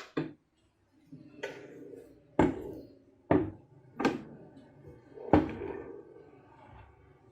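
A series of about seven knocks and clunks, unevenly spaced, each with a short ringing tail.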